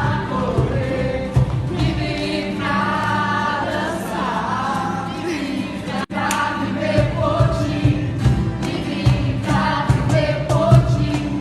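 Gospel worship song sung by a choir of mixed voices over a band with a steady beat. The sound drops out for an instant about six seconds in.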